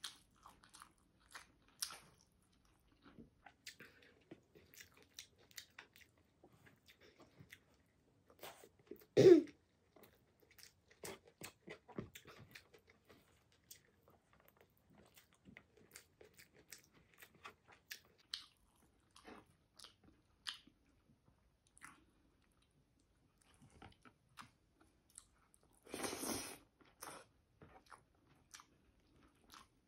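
A person chewing pork belly and rice eaten by hand, a run of small wet mouth clicks and chewing sounds. A loud short sound comes about nine seconds in, and a second, longer one of about a second comes near the end.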